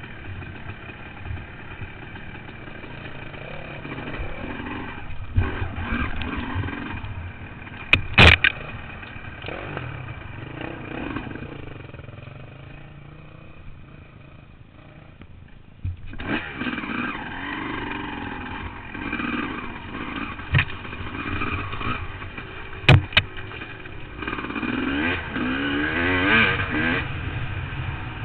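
Honda CR250 two-stroke dirt bike engine being ridden along a trail, the throttle opening and closing, with a few sharp knocks. It quietens for a few seconds around the middle, then revs up again with rising pitch near the end.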